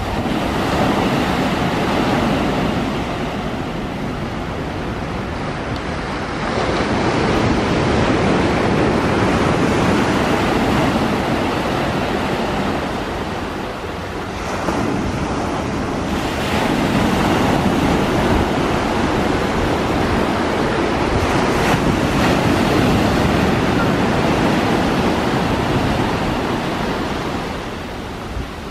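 Rushing noise of surf and wind buffeting the microphone, swelling and easing every several seconds, with no distinct jet engine sound standing out.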